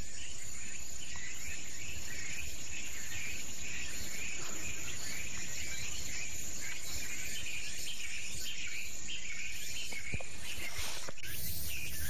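A steady chorus of insects chirping, in even pulses, over a constant outdoor hiss.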